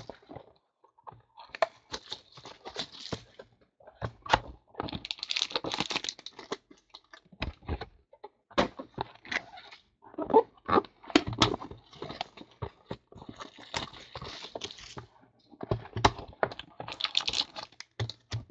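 Trading card boxes and foil-wrapped card packs being handled and opened: crinkling and rustling of foil and cardboard, with many small clicks and taps.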